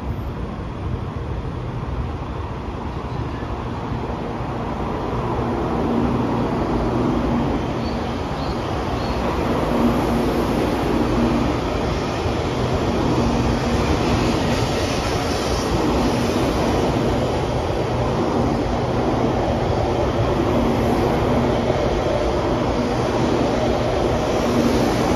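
Taiwan High Speed Rail 700T trainset pulling out along the platform. Its running noise grows louder over the first several seconds as it gathers speed, then holds steady as the cars roll by, with a low hum that comes and goes.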